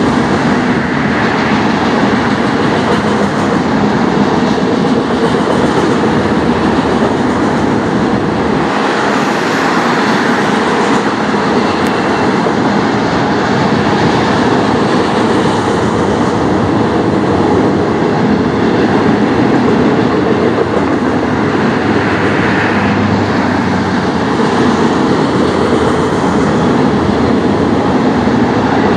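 Autorack cars of a Canadian National manifest freight train rolling by: a steady, loud rumble of steel wheels on rail.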